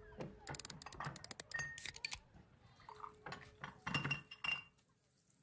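Sound-effect opening of a song: light glass clinks and clicks, a few short ringing notes and a little pouring liquid, dense at first and thinning out after about two seconds.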